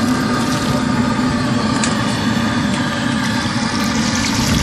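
A homemade gas-fired furnace for melting aluminium running with a steady, even noise and a low hum, with a few light clicks over it.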